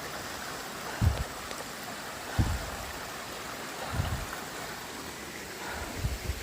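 Steady rushing of a mountain brook over boulders (Nineteen Mile Brook), with dull low thuds about every second and a half from a hiker's footsteps while walking uphill.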